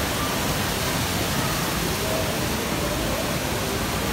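Water streaming down artificial rockwork in a waterfall feature, a steady, even rushing hiss.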